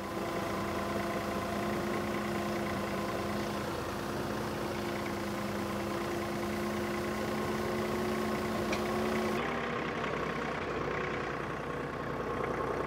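John Deere compact tractor's diesel engine running steadily under load as it pulls a box blade through dirt. The engine note shifts abruptly about nine seconds in.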